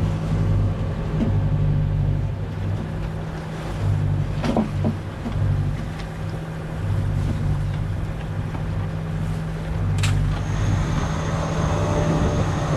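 Sailboat's engine running steadily under way, a low hum that swells and fades every second or so, with a sharp click about ten seconds in.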